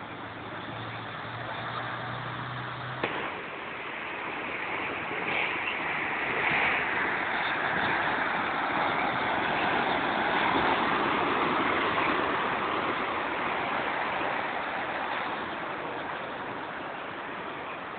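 Muddy floodwater rushing through a flooded street: a steady rushing noise that grows louder from about five seconds in and eases off toward the end. A low steady hum sounds under it for the first three seconds.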